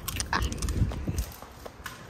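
Irregular light knocks, rubs and thuds from a handheld phone being grabbed and moved about close to its microphone. They are busiest in the first second or so, then thin out.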